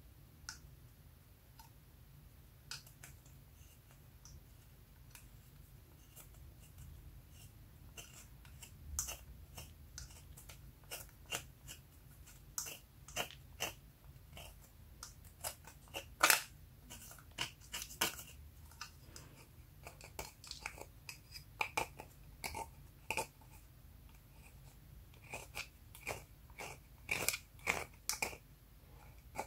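Plastic spatula digging into and scraping a compact of pressed makeup powder, breaking it into crumbly chunks: irregular crunching clicks, sparse at first and coming thicker after several seconds.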